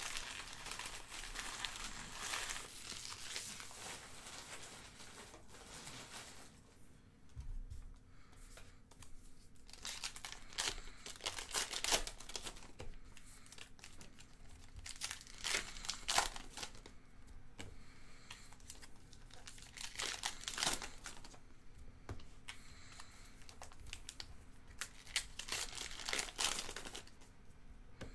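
Foil wrappers of Topps Gypsy Queen baseball card packs being torn open and crinkled by hand, in repeated bouts of rustling with short quieter pauses between.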